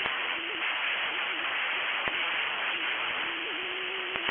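Weather-radio receiver static: a steady hiss with a faint wavering whistle and a few sharp clicks, as the broadcast voice drops out of the stream.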